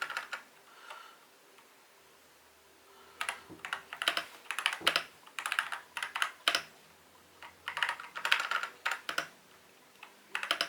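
Typing on an Attack Shark K75 mechanical keyboard: bursts of rapid keystroke clicks with short pauses between them, after a near-quiet stretch of about two seconds near the start.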